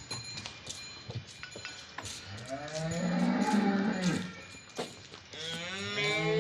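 A cow mooing twice: a long, low moo starting about two and a half seconds in and lasting nearly two seconds, then a second long moo that begins near the end.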